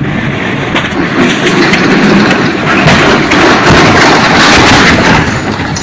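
Runaway bulk cement tanker truck crashing and skidding along the roadside: a loud, noisy rumble with scattered knocks, building to its loudest about three seconds in and easing near the end. The truck has lost its brakes.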